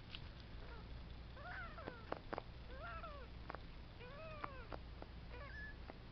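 Three-week-old kitten mewing about four times, each mew a short call that rises and falls in pitch, with a few sharp clicks between the calls.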